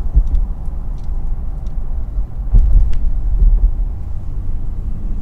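A car driving at road speed, heard from inside the cabin: a steady low rumble of road and engine noise, with a few light ticks.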